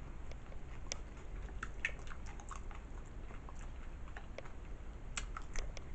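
Close-up chewing of nachos: irregular small wet mouth clicks and smacks, more of them in the first couple of seconds and again near the end.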